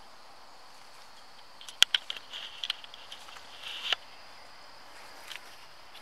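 Woodland ambience with a faint steady high insect drone, broken by a few sharp clicks and scrapes about two and four seconds in.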